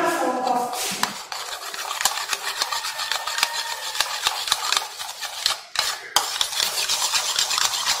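Metal spoon stirring starch powder into cold water in a glass bowl, clinking and scraping rapidly against the glass, with a short pause a little before six seconds in.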